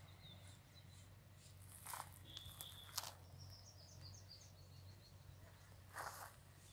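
Faint bird chirps, short and high, including a quick run of chirps in the middle, over a low steady hum, with a few brief rustles or taps.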